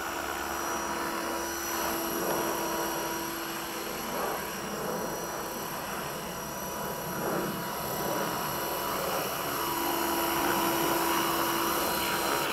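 Radio-controlled model helicopter running: a steady electric motor and rotor whine with a whir of blades. A humming tone in it fades about four seconds in and comes back near ten seconds.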